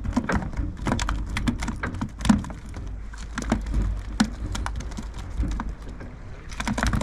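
Wind rumbling on the microphone, with many irregular close clicks and knocks.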